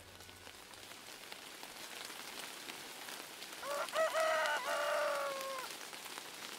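A rooster crowing once, a few seconds in: a run of short notes and then one long note that falls away. Steady rain patters throughout.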